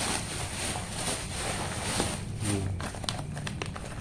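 Plastic packaging rustling and crinkling as items are pulled out of a box, with a scatter of small clicks and taps.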